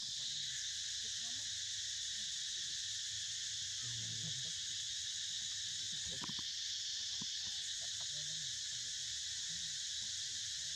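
A steady, high-pitched chorus of forest insects, shrilling without a break.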